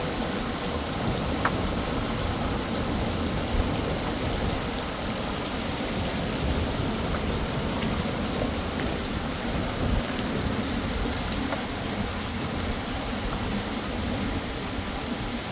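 Steady rush of a river's running water, with a few faint clicks.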